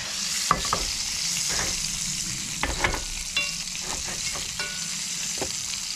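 Green beans frying in hot steak grease in a small cast-iron pot, with a steady sizzle. A utensil stirs them, scraping and clicking against the iron several times.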